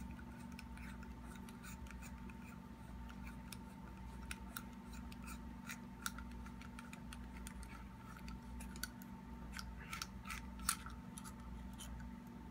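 Faint small metallic clicks and scratches of needle-nose pliers turning a threaded valve stem out of a regulator body, sparse at first and busier near the end.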